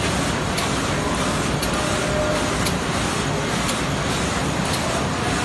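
Automatic vertical film laminating machine running with a steady mechanical whirr, a sharp high click repeating about once a second.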